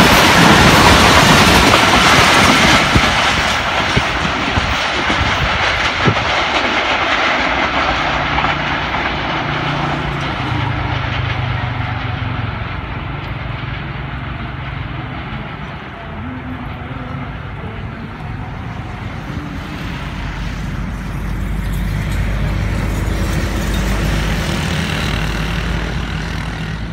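Tezgam Express passenger coaches rushing past at speed, wheels clacking over the rail joints. The noise then fades steadily as the train runs off into the distance, leaving a low steady drone that swells again in the last few seconds.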